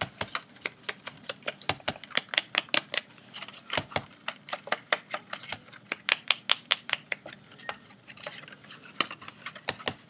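Paper edges being inked on an ink pad to distress them: a run of quick, light taps and dabs against the pad, several a second, in clusters with brief pauses.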